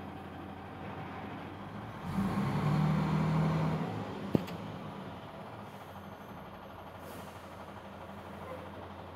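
Diesel engine of a sand-laden tipper truck running with a steady low hum, getting noticeably louder for about two seconds around two seconds in, then settling back. A single sharp click comes a little after four seconds.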